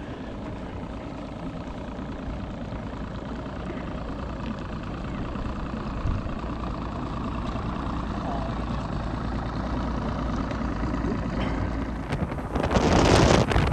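Bass boat's outboard motor idling steadily, slowly growing louder. Near the end it gives way to loud wind rush on the microphone and water noise as the boat runs fast across the lake.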